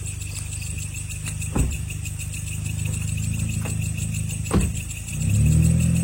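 Car engine running steadily while driving, with two sharp thuds and the engine note swelling and shifting in pitch near the end.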